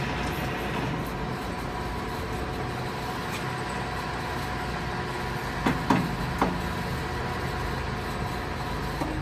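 Clausing 13 x 36 variable-speed engine lathe running with a steady hum. About six seconds in come three short clunks close together.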